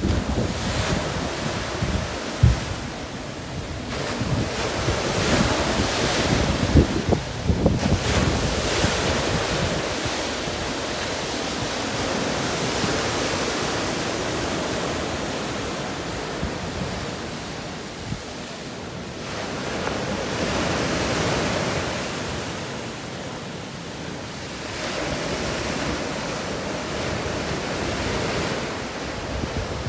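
Sea surf breaking and washing up a beach, swelling and ebbing every few seconds. Wind buffets the microphone, hardest in the first eight seconds or so.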